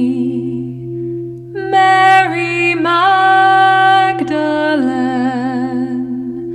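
A woman singing long, held wordless notes that enter about a second and a half in and step down in pitch partway through, over a steady low drone of crystal singing bowls.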